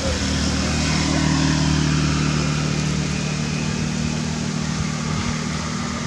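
A motor vehicle's engine running with a steady low hum, under a background hiss.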